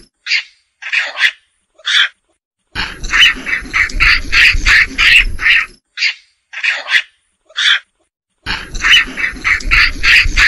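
Monkey chattering calls: two runs of rapid, evenly spaced calls, about four a second and some three seconds long each, with a few single calls and short silences between them, the same sequence repeating.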